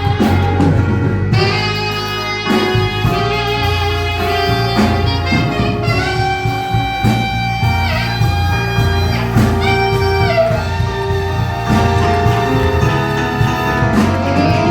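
Instrumental music: a lead instrument plays long held notes with a few sliding bends, over a steady bass line.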